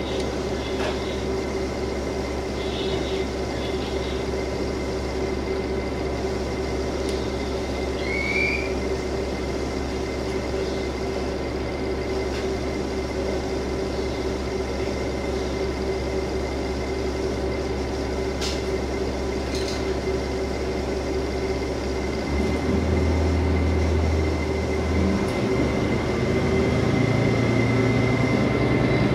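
KiHa 47 diesel railcar's engine heard from inside the car, running at idle with a steady hum. About 22 seconds in it opens up, louder and deeper, as the train starts to move.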